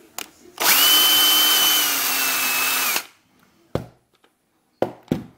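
Electric drill running for about two and a half seconds while boring a wire hole in a model locomotive's gearbox housing. Its whine drops slightly in pitch midway, then the drill stops. A few short knocks from handling the part follow.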